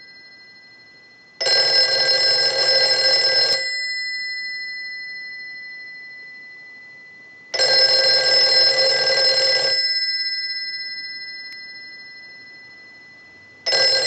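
Western Electric 302 desk telephone's bell ringing in about two-second bursts roughly four seconds apart. It is ringing on a test ring cycle, showing the repaired bell circuit works. The gongs fade slowly after each burst; two full rings are heard, and a third starts near the end.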